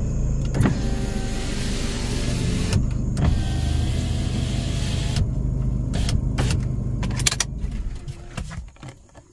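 Car engine running while the car creeps a short way, with two stretches of hissing rush and a faint whine, each about two seconds long. A few sharp clicks follow, and the engine shuts off about eight seconds in.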